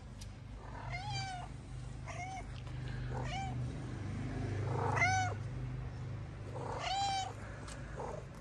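A cat meowing again and again, about five separate meows a second or two apart, the loudest about five seconds in. A steady low hum runs underneath.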